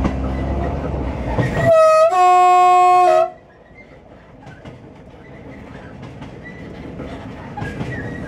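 Train horn sounded twice about two seconds in: a short higher note, then a longer lower one of about a second. Before it the diesel railcar runs loudly; after it the running drops to a quiet rumble of wheels on the rails that slowly builds again.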